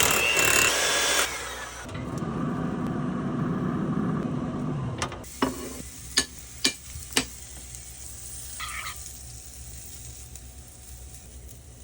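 Kitchen cooking sounds: a small kitchen appliance motor whirs and shuts off about a second in, then a few seconds of stirring noise. Four sharp clinks follow around the middle, over a soft sizzle.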